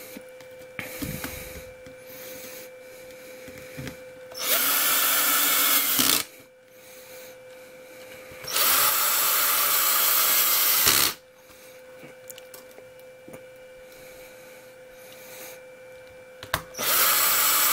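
Cordless screw gun running in three bursts of about two seconds each, driving Phillips screws into the plastic chassis; the last run starts near the end. The screws are only being started, not tightened down all the way, with the torque kept low because they go into plastic. Light handling clicks come between the runs.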